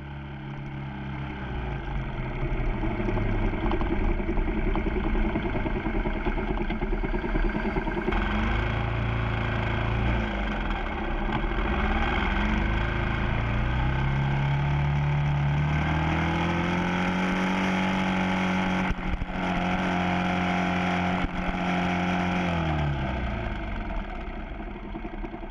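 Motorcycle engine running on the move. The revs climb in pitch in several steps as it accelerates through the gears, hold steady for several seconds, then drop near the end as it slows.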